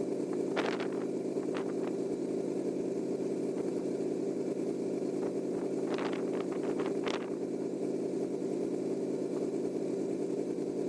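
LS V8 truck engine idling with its electric radiator fans running on low speed, a steady hum. A few short clicks or knocks come through about half a second in and again around six to seven seconds in.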